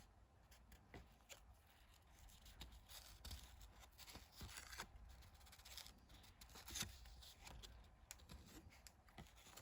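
Near silence with faint, scattered rustles and light clicks of trading cards being handled and flipped through.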